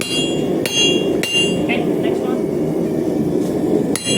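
Blacksmith's hammer striking metal on an old iron anvil while forging tongs: three ringing blows about two-thirds of a second apart, then one more near the end, over a steady low rushing noise.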